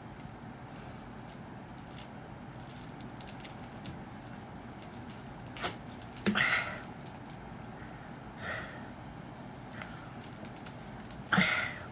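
A person drinking cola: faint mouth and swallowing sounds with small clicks, and two louder short throat sounds about six and eleven seconds in, the second the loudest.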